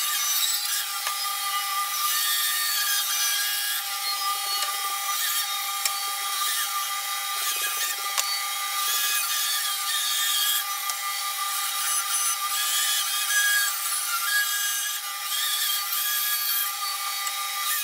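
Bandsaw running with a steady whine, its blade cutting through a wooden joist; the cutting noise rises and falls as the board is fed and shifted.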